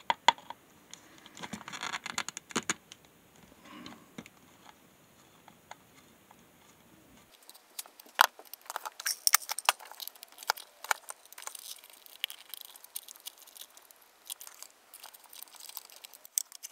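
Irregular light clicks, taps and scrapes of a screwdriver tip and fingers working on a plastic power-meter case and its circuit board.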